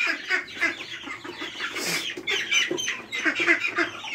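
Ducklings and young chicks peeping, many short high calls overlapping, with a few lower clucks among them.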